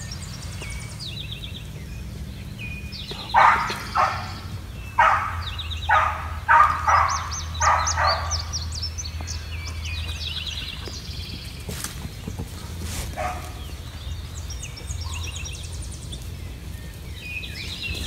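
A dog barking about eight times in quick succession a few seconds in, the loudest sound here. Small songbirds sing high chirping phrases throughout over a steady low hum.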